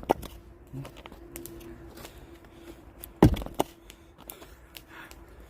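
An axe striking firewood: one heavy blow about three seconds in, followed a moment later by a lighter knock, with a smaller knock right at the start.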